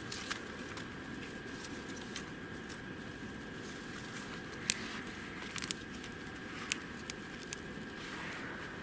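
Scattered sharp snaps and clicks of small dry twigs being broken and handled for kindling, the loudest snap about halfway through and a quick cluster soon after.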